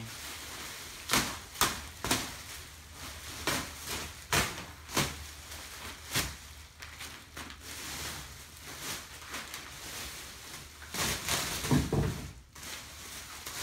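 Bubble wrap and plastic sheeting rustling and crinkling as they are pulled off, with a run of sharp crackles. The loudest crackles come about a second in and again near the end.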